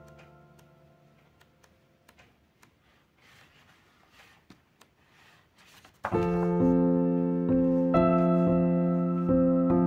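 Soft background piano music. One passage dies away into a few seconds of near silence broken by faint small clicks, and about six seconds in a new piano passage starts with sustained, repeated chords.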